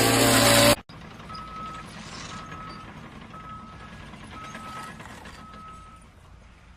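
A loud, sustained multi-pitched tone cuts off abruptly under a second in. It is followed by a vehicle's reversing alarm beeping five times, about once a second, over a low steady engine rumble.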